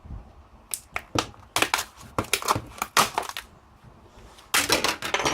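Plastic back cover of a cheap tablet being pried off: a run of sharp snaps and cracks as its clips let go, densest in the middle and again near the end.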